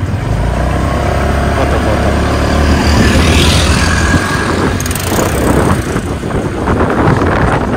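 Motor scooter riding along, its engine mixed with wind rushing over the microphone; the low rumble is heaviest for the first four seconds or so.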